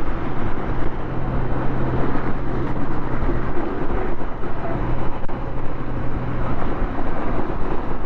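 Motorcycle riding at a steady cruising speed: a constant engine drone under heavy wind and road rush.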